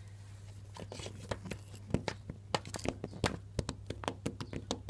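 Plastic Schleich toy horse figures being walked along a wooden floor by hand, their hooves tapping in a string of irregular light clicks that starts about a second in, over a faint steady low hum.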